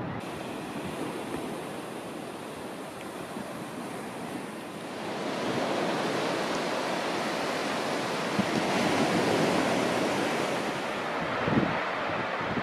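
Surf washing onto a sandy beach, with wind buffeting the microphone; the wash grows louder about five seconds in.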